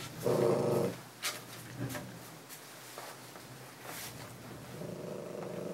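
Small terrier-mix dog growling through a full-face muzzle, a low rumble for about half a second near the start and again for about a second near the end: a warning growl from a dog ready to bite. A few light clicks and knocks of handling fall between.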